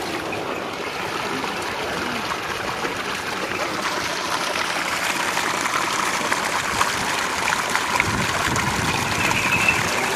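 Water from a bullock-driven pump gushing steadily out of a discharge pipe into a muddy irrigation channel, a continuous rushing and splashing that grows a little louder about four seconds in.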